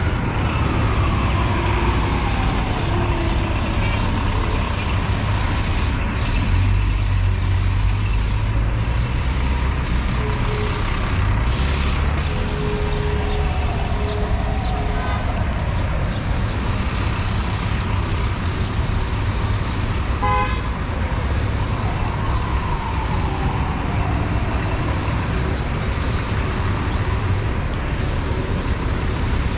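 City street traffic: a steady low rumble of passing buses, trucks and cars, with engine whines that fall in pitch as vehicles go by. A short horn-like toot sounds about two-thirds of the way through.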